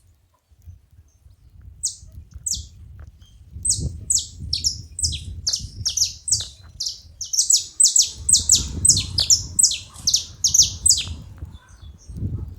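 Several saffron finches calling together: a rapid, overlapping run of short, high notes, each sliding downward, starting about two seconds in and stopping about a second before the end.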